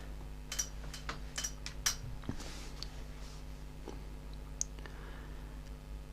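Scattered light clicks and taps of handling, five in the first two and a half seconds and one more near the end, over a steady low hum.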